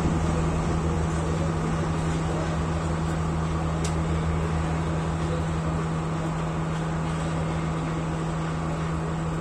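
Diesel engine of an S13 diesel multiple unit droning steadily with a low hum, fading slowly as the train moves away.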